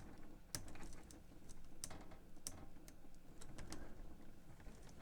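Faint, irregular small clicks and ticks of fingernails on metal, working a tiny washer onto a shaft in a cassette deck's tape transport.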